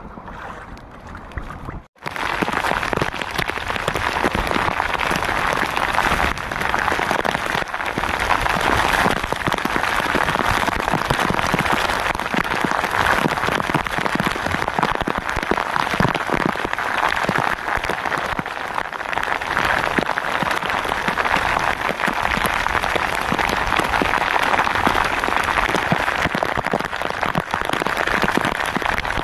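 Heavy rain pouring down around an open wooden boat at sea: a dense, steady patter of drops that comes in suddenly about two seconds in, after a brief gap.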